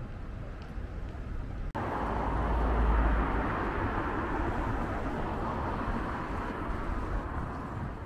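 Steady city traffic noise with no clear birdsong. It jumps abruptly to a louder stretch with a low rumble a couple of seconds in.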